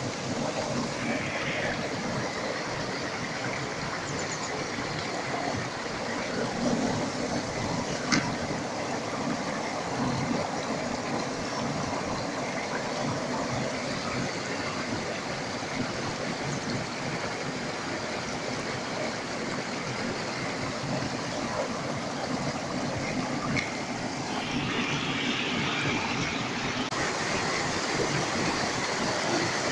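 Mountain stream water rushing steadily over rocks, a constant even rush, with a single brief click about eight seconds in.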